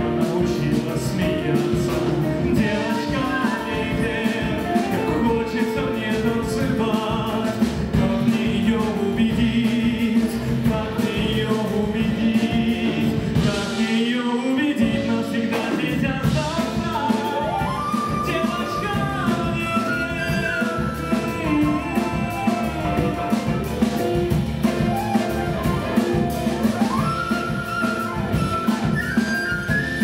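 A small live band playing a song, with a male lead vocalist singing. The low end drops out briefly about fourteen seconds in.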